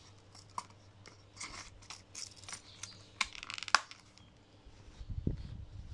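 A small knife is handled in a thick leather sheath: leather rubbing, several sharp clicks, and a quick rattling scrape a little past three seconds in. Low handling rumble starts about five seconds in.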